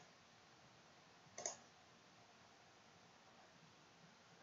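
Near silence with a single computer mouse click about a second and a half in.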